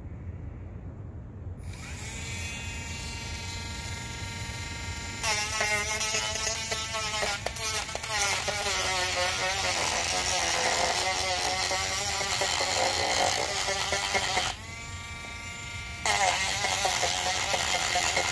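A rotary tool spinning a sanding wheel, grinding old glue off an RC tire's rim and bead. It starts about two seconds in with a steady high whine, then grows louder and wavers in pitch from about five seconds in as the wheel bites into the glue. It eases back to a steady whine for a moment before grinding again near the end.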